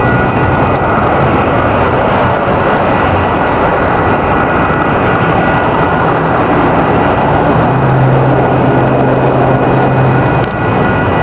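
Union Pacific double-stack intermodal train's well cars rolling past at close range: steady wheel-on-rail rumble and clatter, with a thin high steady squeal running underneath and a low hum joining in for a few seconds in the second half.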